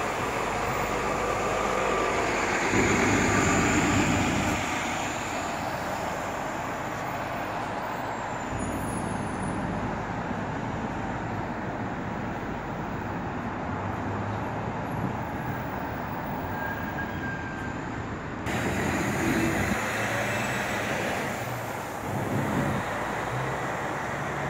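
Nova LFS articulated hybrid-electric bus, with a Cummins ISL diesel and an Allison EP 50 hybrid drive, pulling away from a stop. It is loudest about two to four seconds in, then fades into passing street traffic.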